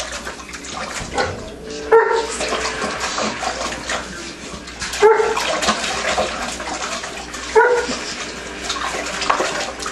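Labrador puppy splashing and dabbling in a pot of water, with three short barks into it about two, five and seven and a half seconds in.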